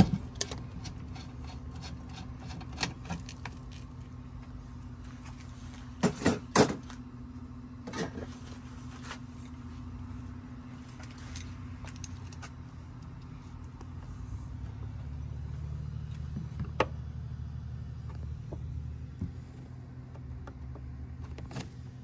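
Scattered metallic clinks and knocks of an adjustable wrench on the gas-line fitting at the back of a Dometic absorption fridge, the loudest a pair of sharp knocks about six seconds in. A steady low hum runs underneath.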